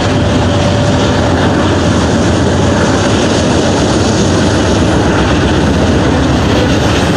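Freight train rolling across a railway overpass: a loud, steady rumble and rattle of the cars, with a faint held squeal in the first second or so.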